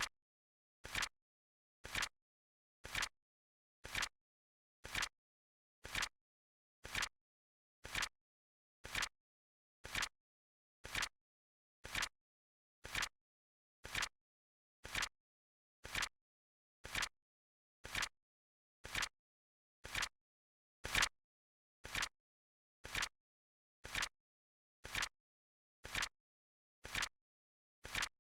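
Flip-clock countdown timer sound effect: a short, crisp flip click once a second, evenly spaced, with dead silence between. One click, about three-quarters of the way through, is louder than the others.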